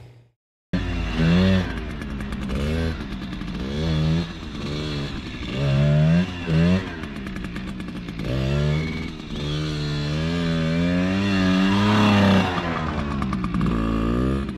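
Small motorcycle engine revving up and down over and over, starting abruptly about a second in.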